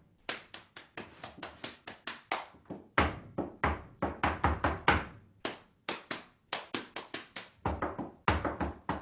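Rhythmic percussive tapping in quick groups with short pauses between, beating out a galloping horse rhythm for listeners to copy.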